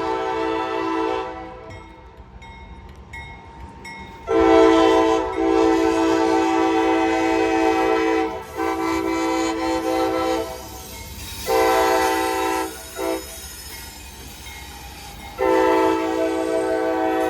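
Norfolk Southern diesel locomotive's multi-chime air horn sounding a series of blasts: one fading out about a second in, then long, long, short, long, the pattern of a grade-crossing signal. Under the horn is the steady rumble of the passing freight train.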